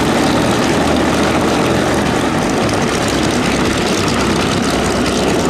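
Chance Vought F4U-4 Corsair's Pratt & Whitney R-2800 radial piston engine running at taxi power, the propeller turning, as the aircraft taxis past; loud and steady.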